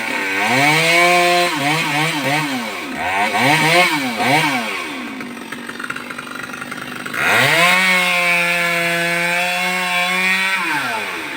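Chainsaw engine revving: the throttle is blipped up and down several times, it drops back to idle for a couple of seconds, then it is held at high revs for about three seconds before easing off near the end.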